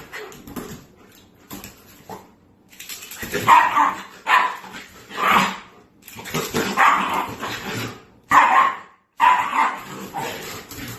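A dog barking repeatedly, a string of loud barks about a second apart from about three seconds in.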